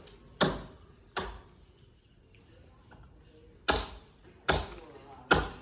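Axe chopping into wood with sharp, evenly spaced blows: two blows, a pause of about two seconds, then three more.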